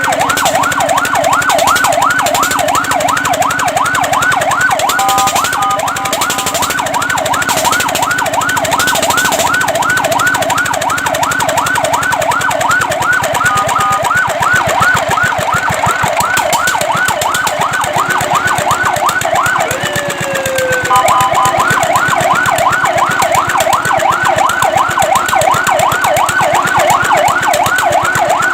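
Fire truck siren sounding a fast yelp, warbling up and down about five or six times a second. A few times it breaks briefly into a steady two-note tone, and about two-thirds of the way in a single falling tone cuts across it.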